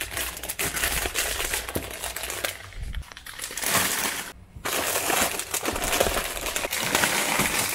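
Plastic snack wrappers crinkling and crackling as packets are handled and pushed onto a shelf.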